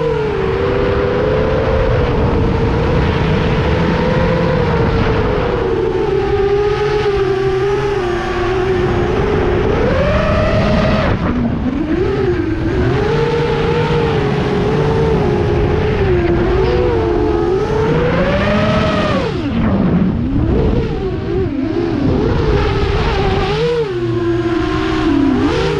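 FPV quadcopter's brushless motors whining, the pitch rising and falling with the throttle, with a deep dip and quick climb about twenty seconds in.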